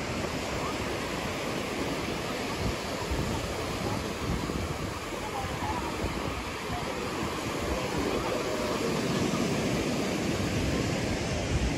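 Surf washing onto a sandy beach, a steady rushing hiss, with wind buffeting the microphone. Voices of beachgoers grow louder over the last few seconds.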